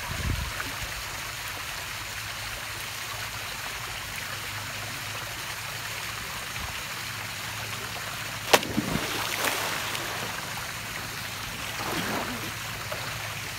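Seawater lapping and splashing, a steady wash of water noise that swells a little twice. There is one sharp knock about eight and a half seconds in.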